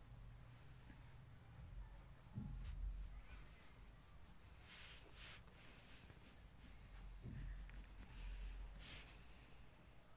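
Faint pencil scratching on paper in many short, quick strokes as small details are sketched, with two soft low bumps, one about two seconds in and one about seven seconds in.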